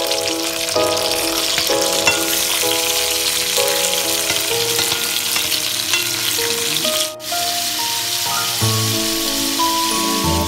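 Fatty pork sizzling in hot oil in a nonstick wok, stirred with a wooden spatula, over light background music. The sizzle drops out briefly about seven seconds in.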